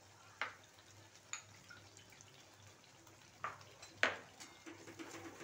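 Thick masala paste with curd simmering in a steel kadai, bubbles bursting with sharp little pops about four times over a faint low hum.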